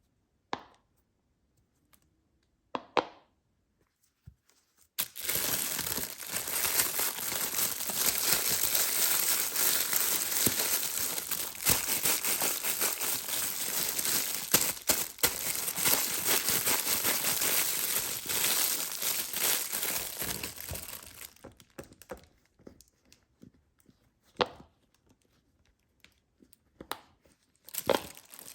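Plastic packaging being crinkled and torn open by hand: a couple of short rustles, then about fifteen seconds of continuous crinkling from about five seconds in, which dies away, followed by a few more brief rustles near the end.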